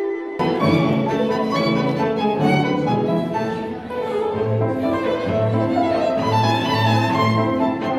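Classical chamber music on violin and cello, a new passage cutting in abruptly just after the start and playing on steadily.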